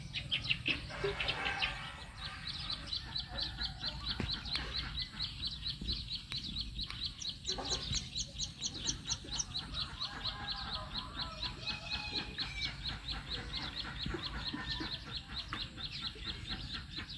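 Birds calling in the open: a rapid, steady run of short high chirps, about four or five a second, with a brief higher series of chirps near the middle and some lower clucking calls in the first couple of seconds.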